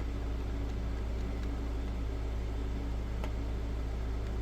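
Steady low hum with a faint hiss underneath and a light click about three seconds in.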